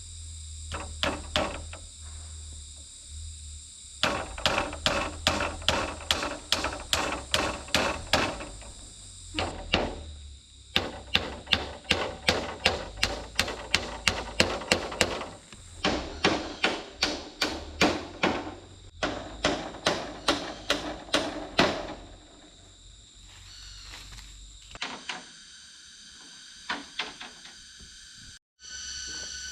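A hand tool striking bamboo over and over, about two to three blows a second, in runs of several seconds with short pauses between. Insects chirp steadily in the background.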